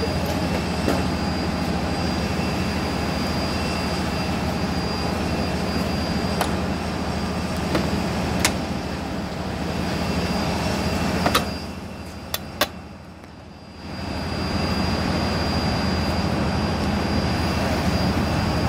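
Steady jet-turbine whine and low hum of aircraft running on the apron. About two-thirds of the way through come a few sharp metallic clicks as the Embraer 190's cargo door handle and vent panel are latched shut, and the hum dips briefly around them.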